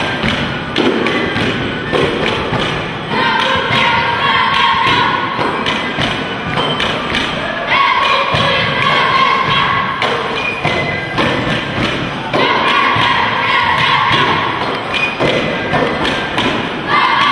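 Music for a Romanian capra (goat) dance: a fast, even beat of thumps and clacks, with a held melody line coming back in short phrases about every four to five seconds.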